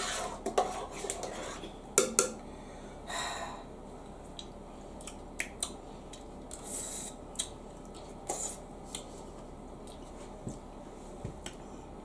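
Metal spoon clinking and scraping against a pot of thick broccoli soup as it is stirred and scooped. There are several sharp clinks in the first two seconds, a short swish a little after, then only scattered faint clicks.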